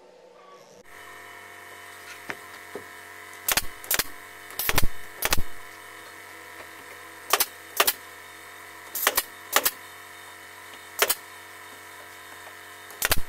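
Pneumatic nail gun firing about a dozen sharp shots, singly and in quick pairs, driving nails through a board to fasten it onto a CNC router's bed, over a steady machine hum.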